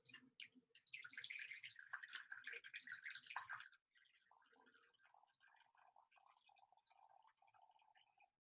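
Water poured from a cup into a bowl of water: a splashing pour for about three and a half seconds, then a quieter trickle that stops near the end.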